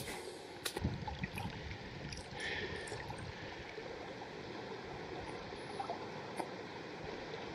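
Steady rush of a flowing creek, with a few light clicks near the start.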